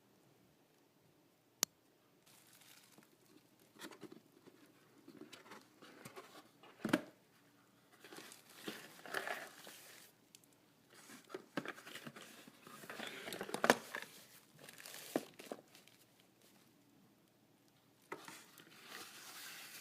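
Packaging being handled and unwrapped, crinkling and rustling in irregular bouts. A sharp click comes under two seconds in and a knock about seven seconds in.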